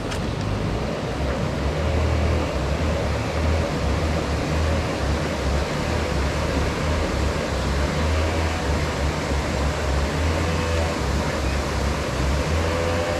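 Wind buffeting an action camera's microphone: a steady rushing hiss over a low, fluttering rumble.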